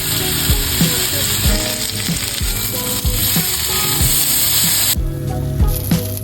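Food sizzling loudly as it fries on high heat, over background pop music with a steady beat. The sizzle cuts off suddenly about five seconds in, leaving only the music.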